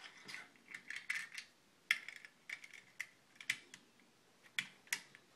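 Irregular sharp plastic clicks and taps of Lego pieces being handled and pressed onto a small Lego mail truck.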